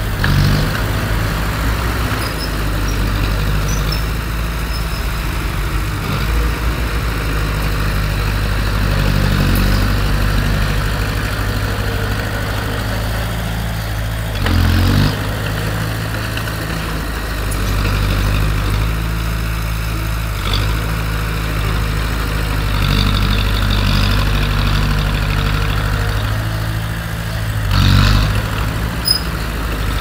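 Heavy earthmoving machinery's diesel engine running steadily, with brief louder surges just after the start, about halfway through and near the end, and a single sharp click shortly before the end.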